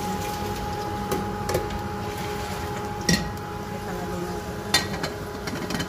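Kitchen cookware and utensils clinking: about five sharp metallic taps, the loudest about three seconds in with a short ring, over a steady background hum.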